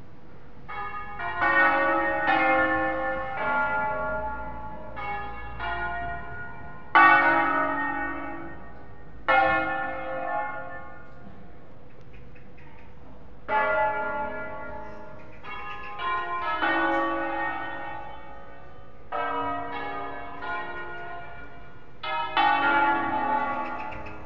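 The seven-bell ring of Cremona Cathedral, tuned in A-flat major, ringing in concerto: bursts of bells struck in quick succession, each stroke ringing on and fading, with short pauses between the phrases.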